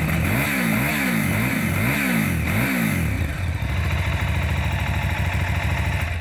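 KTM 990 Adventure's V-twin engine revved in neutral on the stand: about five quick throttle blips, each rising and falling, over the first three seconds, then settling back to a steady idle.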